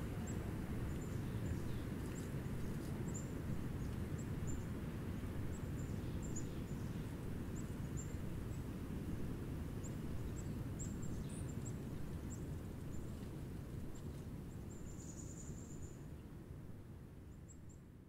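Winter outdoor ambience: a steady low rumble with many short, very high chirps of small birds scattered through it, fading out over the last few seconds.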